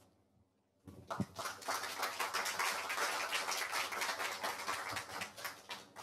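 Audience applauding, starting about a second in and dying away near the end, with one sharper knock just after it begins.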